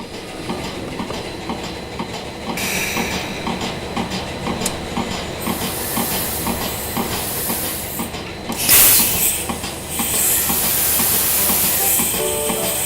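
Steady clattering, rattling noise full of quick irregular clicks, with a brief loud burst of hiss about nine seconds in and a few short tones near the end.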